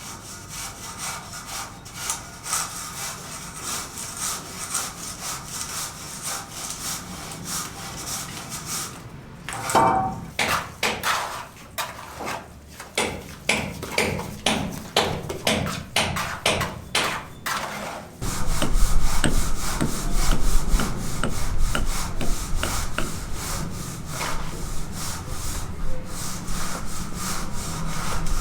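Rhythmic back-and-forth scraping strokes, about two or three a second, becoming louder and denser with a low rumble about two-thirds of the way in.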